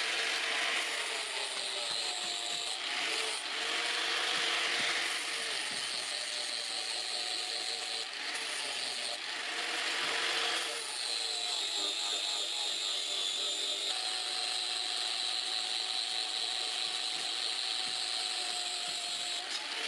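Electric angle grinder running steadily with a high whine, its abrasive disc grinding a forged steel scissor blade; the rasping grinding noise thickens for a few seconds at a time as the disc bears harder on the steel.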